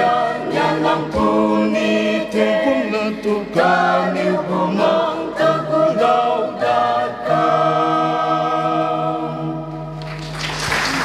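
Mixed choir singing a hymn in parts, closing on a long held final chord; applause breaks out near the end.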